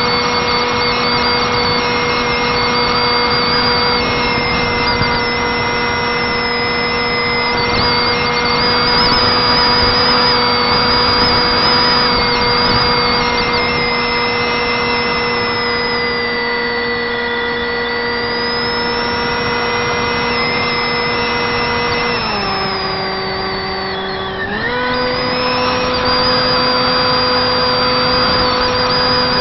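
Turnigy 28-26 2200kv brushless motor and 6x4 propeller of a Wing Wing Z-84 flying wing in flight, a steady high whine over wind rush, heard from a camera on the airframe. About 22 seconds in the pitch drops as the throttle eases off, then rises back to cruise about two seconds later.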